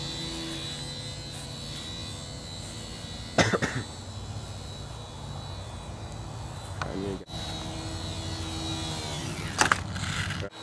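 Small electric motor and propeller of a micro pizza-box RC plane built on ParkZone Vapor parts, whining steadily in flight, its pitch sagging a little near the end. Two loud knocks cut in, about three seconds in and near the end.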